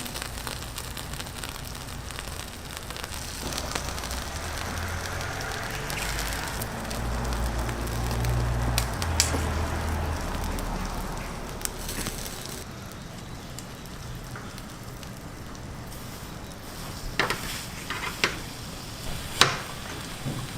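Food sizzling as it fries on a hot cooking surface, with a low rumble swelling and fading in the middle. A few sharp clicks sound near the end.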